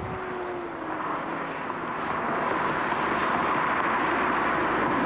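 BMW 535i with its 3.4-litre straight-six approaching at high speed, about 130 mph. The engine and the rush of wind and tyres grow louder over the first few seconds, then hold steady as the car nears.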